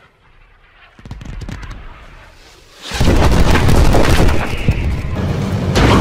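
Action-film soundtrack: quiet at first, a low rumble builds about a second in, then at about three seconds it breaks into loud music and booming effects as Hulk leaps and lands on a tank.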